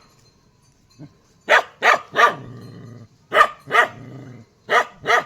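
A dog barking repeatedly: about seven sharp barks in quick groups of two or three.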